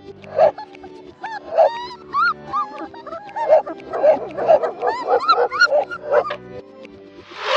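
A dog giving many short, high calls that rise and fall in pitch, one after another, over steady background music.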